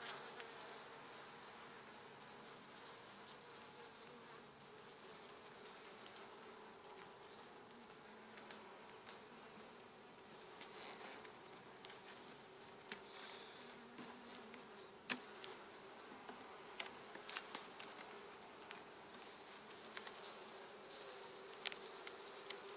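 Honeybees on an opened hive's brood frames buzzing in a faint, steady hum. Several sharp clicks and knocks come through in the second half as wooden frames are pried loose and lifted out with a hive tool.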